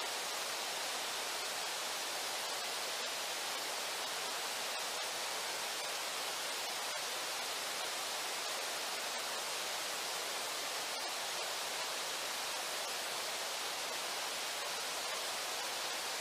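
Steady, even rushing of river water with a few faint ticks.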